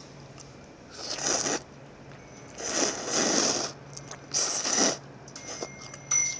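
Cup tantanmyeon noodles being slurped in three long, loud, noisy pulls, about a second and a half in, around three seconds in and near four and a half seconds in.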